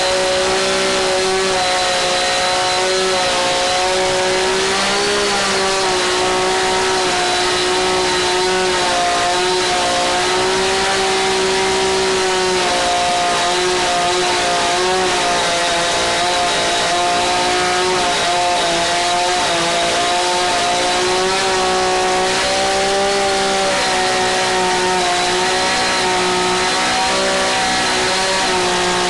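Two-stroke chainsaw with a 30-inch bar running steadily at high revs, its pitch dipping and recovering slightly under load as it planes across a cast twig-and-resin countertop.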